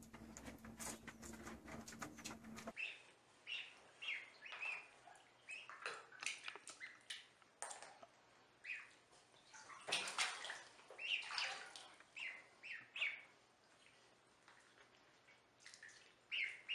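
Ducklings peeping in short, high chirps, scattered and repeated, with occasional water sloshing in a bathtub. Before that, the first few seconds hold dense splashing and a low steady hum.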